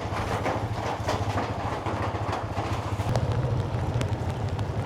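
Small motorcycle engine running with a steady, fast low pulse, getting louder about three seconds in.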